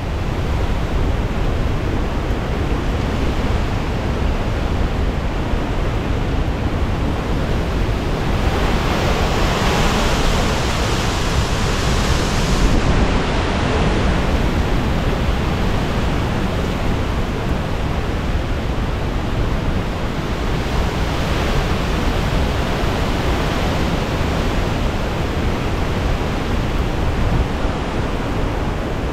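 Hurricane eye-wall wind blowing hard and steadily, with a heavy low rumble of wind buffeting the microphone. A stronger, hissier gust builds about eight seconds in and eases off around fourteen seconds.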